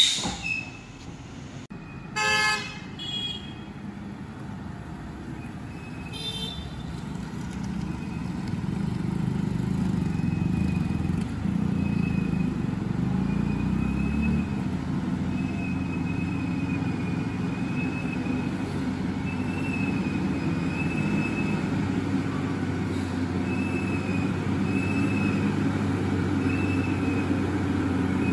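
A vehicle horn honks about two seconds in and again briefly near six seconds. Then a lorry's diesel engine grows louder and runs steadily under load on the climb, with a faint high beep repeating on and off.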